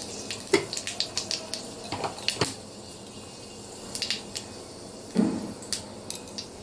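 Panch phoron seeds and a dried red chilli spluttering in hot oil in a kadai: irregular sharp pops and crackles. Two dull knocks, about half a second and about five seconds in.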